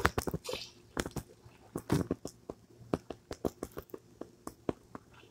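Irregular small clicks and crackles close to the microphone, about three or four a second, over a faint low hum.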